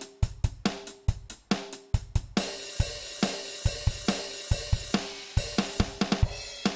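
Background music: a drum kit playing a steady beat on bass drum, snare and hi-hat, with a cymbal ringing on for about three seconds in the middle.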